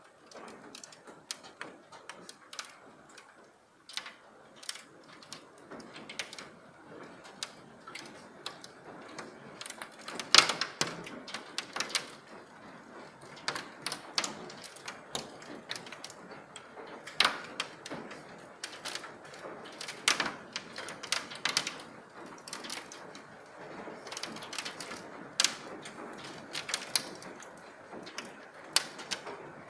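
Hailstones striking brick paving and nearby objects: a dense, irregular run of sharp clicks and clacks over a steady hiss, with a few louder hits about ten, seventeen and twenty seconds in.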